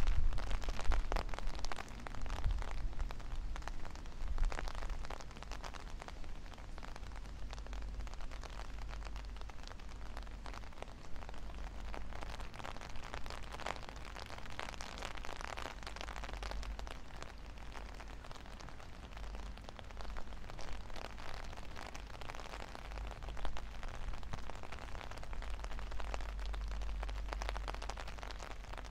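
Rain falling in a crackling patter, with wind buffeting the microphone as a low rumble that gusts loudest near the start.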